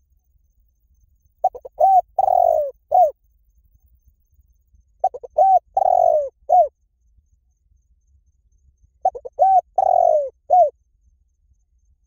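Spotted dove cooing its song three times, about four seconds apart. Each phrase is a couple of short notes, a longer falling coo and a short final note.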